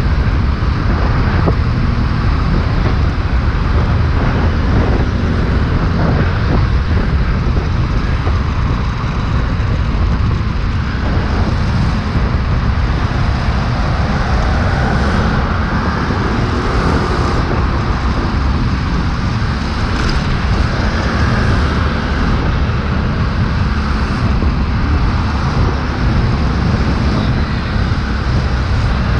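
Steady riding noise from a scooter moving at speed in traffic: its engine, tyres and rushing air blend into one constant noise, with other cars and motorbikes passing.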